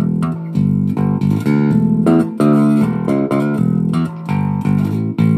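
Chinese Ibanez-style electric bass played fingerstyle on its bridge pickup alone: a continuous run of short plucked notes changing pitch quickly.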